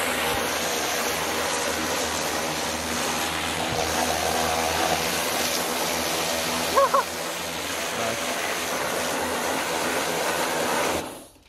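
Pressure washer running, its jet hissing steadily as it sprays a car's engine bay, with a low motor hum beneath. It cuts off abruptly about a second before the end.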